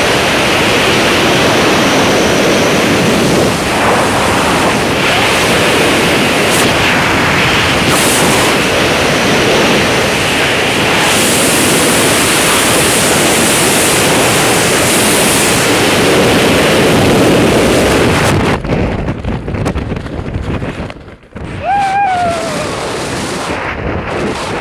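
Freefall wind rushing hard over a body-mounted camera's microphone, a loud, even roar. About eighteen seconds in, the parachute opens and the roar drops away to a thinner, uneven gusting under the canopy.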